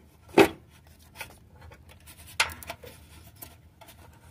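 Close handling noise, rubbing and scraping against the microphone as the phone is moved around the engine bay. Two sudden louder knocks come about half a second and two and a half seconds in.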